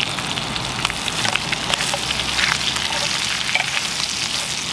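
Trout frying in foaming oil in a small camp frying pan, sizzling steadily with many small pops and crackles. A utensil is worked through the pan.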